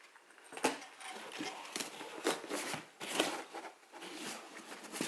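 Cardboard packaging and its foam insert being handled: irregular taps, knocks and scrapes as the box lid and inner box are moved.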